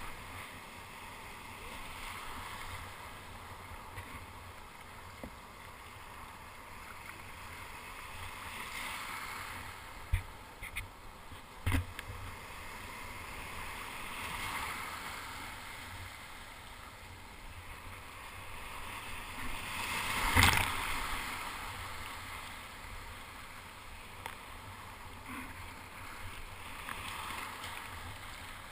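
Whitewater surf rushing and churning around a kayak in the breakers, swelling as waves pass. A few sharp knocks come about ten and twelve seconds in, and the loudest moment is a wave's splash about twenty seconds in.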